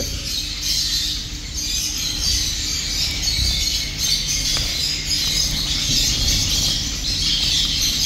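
Many caged finches chirping and chattering together in a dense, continuous chorus, with a steady low hum underneath.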